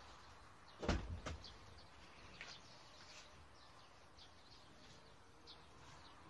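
Quiet garden ambience with faint, scattered bird chirps. A sharp thump with a deep rumble comes about a second in, followed by a smaller click.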